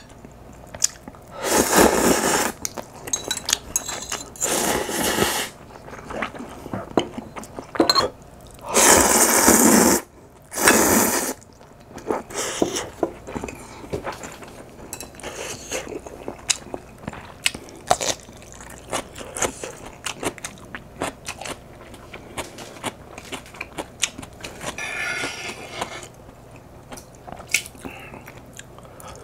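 Close-miked mouth sounds of eating instant ramen noodles: four loud slurps of noodles in the first eleven seconds or so, then chewing with many small clicks and taps of chopsticks and a spoon on the dishes.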